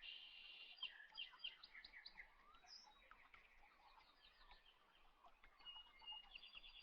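Faint chirping of small birds: many short high calls overlapping, with a quick trill near the end.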